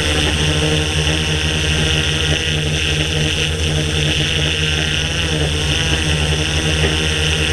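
A DJI S800 Evo hexacopter's electric motors and propellers droning steadily in flight, heard from the GoPro mounted on its frame. The pitch wavers slightly as the motor speeds adjust.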